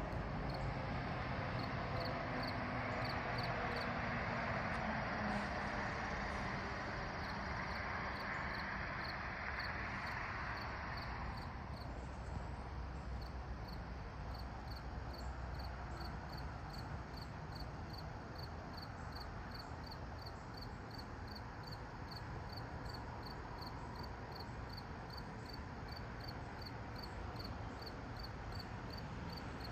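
Insects chirping in an even, steady rhythm, about two high chirps a second, over the hiss of a passing vehicle that fades away about a third of the way in.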